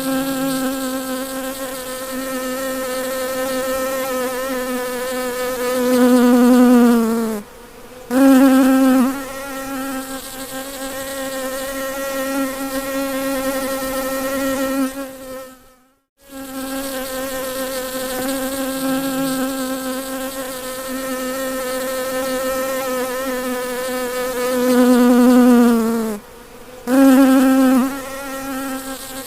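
Bumblebee buzzing, a steady low hum with a rich overtone-laden tone. Twice it swells louder and slides down in pitch, then breaks off for a moment before resuming. About halfway through the sound drops out completely for an instant.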